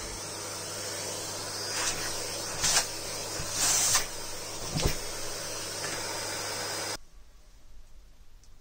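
Vacuum cleaner running steadily while it cleans a dusty air filter, with a few brief louder surges of suction; it switches off about seven seconds in.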